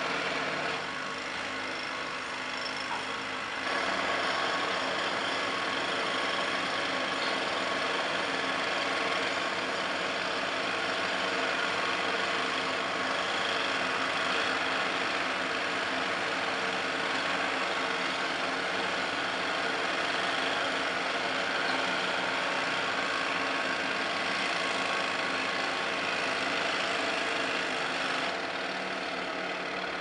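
Pneumatic jackhammers breaking up concrete, a dense continuous hammering over the steady running of the towable air compressor that drives them. The din grows louder about four seconds in.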